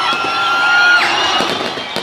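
Crowd cheering at a fireworks display, one high shout held for about a second before breaking off, over the crackle of fireworks.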